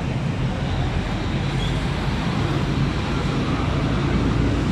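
Steady street traffic noise: vehicle engines running in a continuous low rumble.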